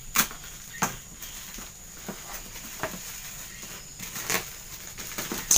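Plastic parcel wrapping being cut with a knife and pulled apart by hand: scattered sharp crackles and snaps, irregular, roughly one every half second to a second, over a faint steady high whine.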